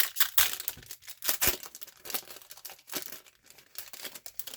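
Wrapper of a hockey card pack being torn open and crinkled: a run of irregular crackling and tearing that stops abruptly near the end.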